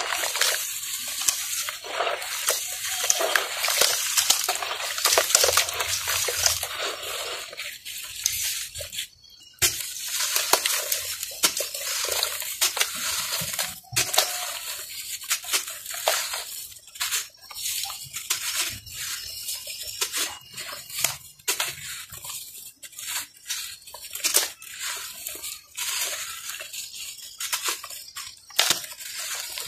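A water-soaked lump of red dirt crumbled by hand in a basin of muddy water: dense wet crackling with sloshing and many small splashes, broken by brief pauses twice in the first half.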